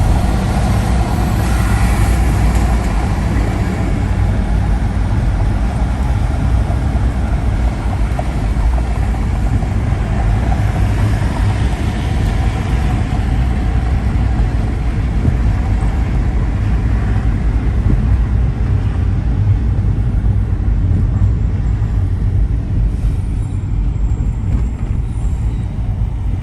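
A car driving through city traffic on rain-wet streets, heard from the road: a loud, steady rumble of engine and tyre noise.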